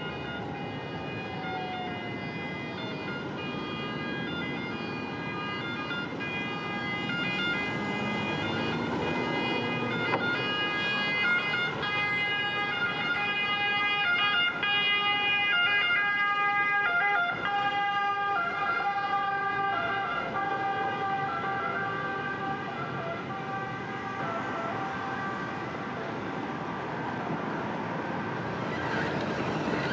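Emergency vehicle siren sounding over street traffic noise, growing louder toward the middle and then fading again.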